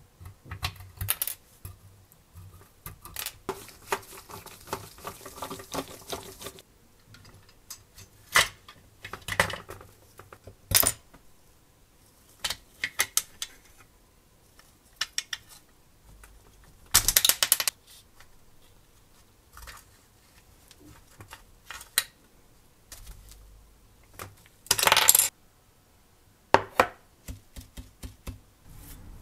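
Hand disassembly of a model car: a thin metal pry tool clicking and scraping against the body and plastic parts, with small parts clinking and clattering as they are handled and set down. The sounds come as separate sharp knocks and short scrapes, with a louder clatter about halfway and another near the end.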